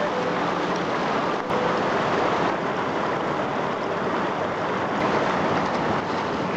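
Shallow river rapids rushing steadily over rocks, a dense, even wash of fast water.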